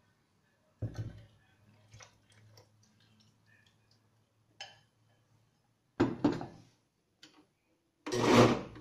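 Scattered light knocks and clicks, then about eight seconds in an Oster countertop blender starts and runs loudly, blending a strawberry and kefir mixture.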